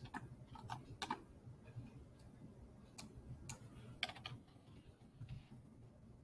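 Faint, scattered clicks of computer keys and mouse buttons, about nine in irregular clusters, over a low steady hum.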